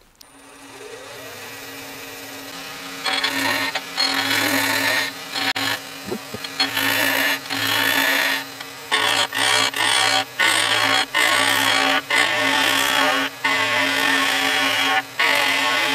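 Wood lathe spinning up and running with a steady hum, then a skew chisel cutting the corners off a square black palm blank. From about three seconds in, the cutting comes and goes in repeated rough passes of a second or so each, with short gaps of motor hum between them.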